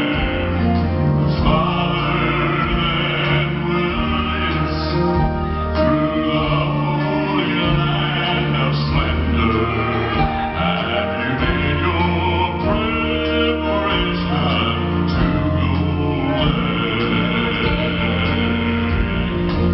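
Male southern gospel vocal ensemble singing in close harmony into handheld microphones, amplified through a PA, with steady low bass notes under the voices.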